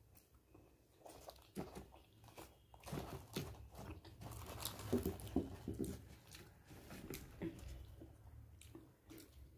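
A puffed luchi (deep-fried puri) torn apart by hand: a run of soft crackles and small crunches from its thin fried crust, thickest in the middle.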